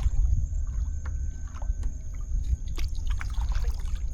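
Wind buffeting the microphone in a steady low rumble, with water splashing and lapping against a kayak. A few small knocks come through, one about one and a half seconds in and a sharper one near three seconds.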